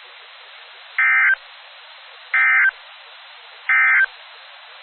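Three short EAS end-of-message data bursts, buzzy digital two-tone chirps about a second and a third apart, which mark the end of the alert. A steady radio hiss runs between them.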